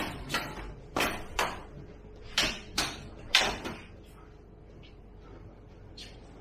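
Sparring sticks clacking together and striking the fighters' padding in an eskrima single-stick bout: about seven sharp knocks in quick pairs over the first three and a half seconds, echoing in the hall. After that, only a few faint knocks.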